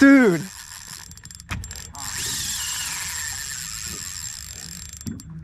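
Spinning reel's drag buzzing as a big fish pulls line off against it, with a brief break about a second and a half in before the run picks up again until near the end.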